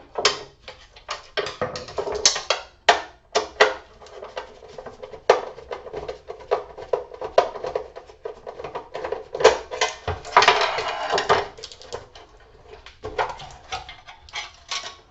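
Small metal parts and tools clinking and clattering irregularly as scrap is taken apart and handled, with a longer rattling scrape about ten seconds in.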